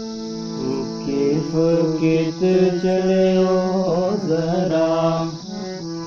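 Gojri folk song intro: steady held instrumental notes, joined about a second and a half in by a voice singing long, drawn-out notes without words, wavering around the middle and easing off near the end.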